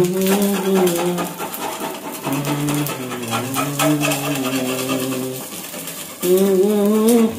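A voice humming a slow tune in long held, wavering notes over the sizzle of an omelette frying in a steel pan, with light clicks of a steel spatula against the pan.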